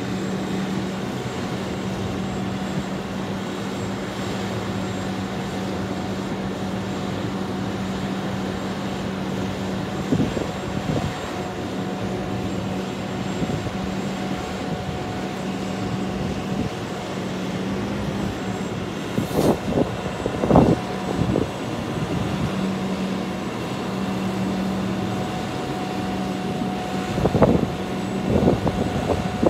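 Diesel engine of a sign crane truck running steadily, with a constant low hum. A few sharp knocks come about two-thirds through and again near the end.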